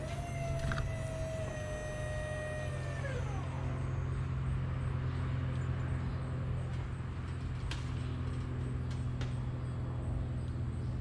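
Tree-work machinery: a steady low engine drone throughout. Over it, at the start, a motor whine rises in pitch, holds for about three seconds and falls away.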